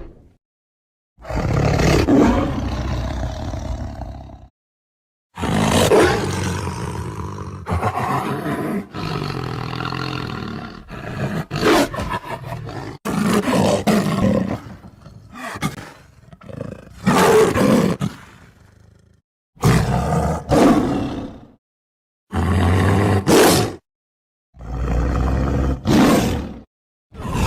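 Tiger roars and growls, about seven separate calls of one to several seconds each, broken up by sudden gaps of dead silence.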